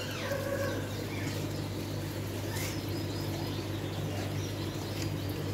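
A few faint bird chirps over a steady low hum.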